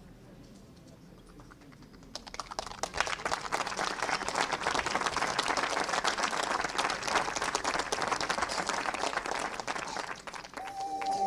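Audience applauding, a dense patter of claps starting about two seconds in and fading near the end, when music starts with a held tone.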